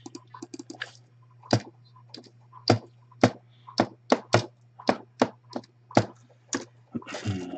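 Computer keyboard keys tapped one at a time: separate sharp clicks, about two a second, over a steady low electrical hum.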